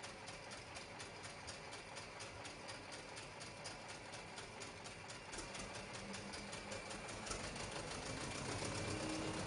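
Recorded 1960s tractor engines idling, played back over loudspeakers in a hall: a rapid, even ticking of the running engines. A deeper engine rumble swells in from about halfway and grows louder.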